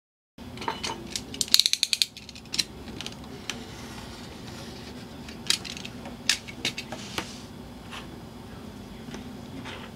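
A snap-off utility knife and steel ruler worked on a cutting mat while cutting a leather strap: a quick run of ratcheting clicks about a second and a half in, then scattered sharp clicks and taps as the knife, ruler and leather are handled.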